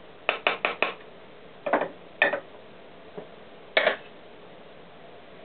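Small metal engine parts and tools clinking as they are taken off and set down: a quick run of four clinks, then three more spaced out.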